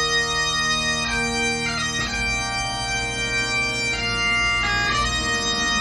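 Great Highland bagpipes playing a slow tune over their steady drones, the chanter moving to a new note every second or so with quick grace notes between.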